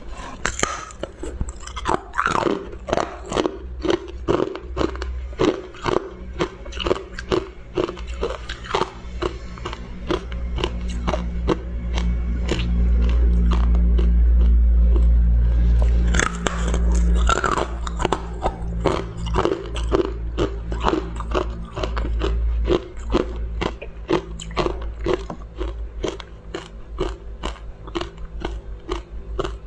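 Close-up biting, crunching and chewing of thin discs of frozen ice, with sharp cracks coming in quick succession. A low hum underneath swells loud for a few seconds in the middle.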